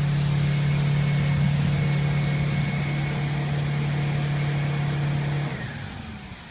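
Oshkosh T-3000 aircraft rescue fire truck's Detroit Diesel engine held at high, steady speed while it drives the fire pump, over the hiss of water spray from the roof turret. About five and a half seconds in, the engine note slides down and the sound drops away.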